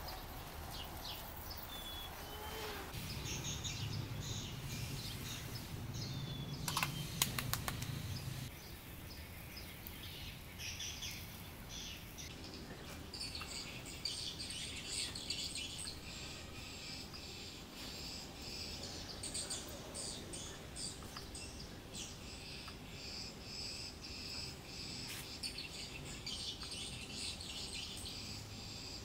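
Birds chirping and calling over and over. A low rumble a few seconds in, with a few sharp clicks near its end.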